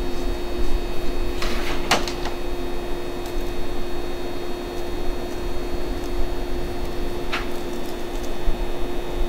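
Parked Shinano Railway 115 series electric trains humming steadily at rest: a constant drone with a steady mid-pitched tone and fainter high whines from their onboard equipment. A few short hisses break through about two seconds in and again about seven seconds in.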